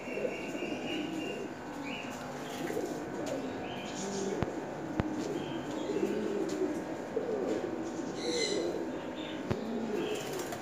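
Many domestic pigeons cooing together in their cages, a continuous overlapping chorus of low warbling coos, with a few short higher chirps and a couple of sharp clicks.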